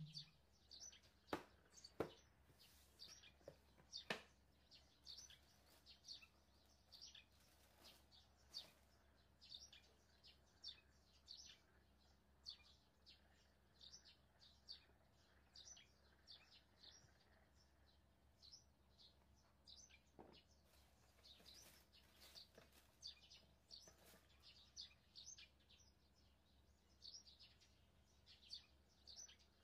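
Near silence with faint, quick bird chirps repeating throughout, and a few soft clicks in the first few seconds.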